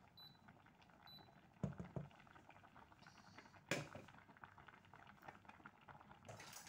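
Pot of pasta water at a rolling boil: faint, steady bubbling and crackling, with two soft knocks about two seconds in and a sharp click a couple of seconds later.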